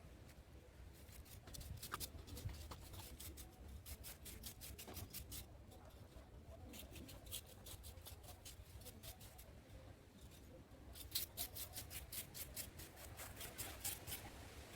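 Series of short, quick scraping or snipping strokes in bursts, densest over the last few seconds.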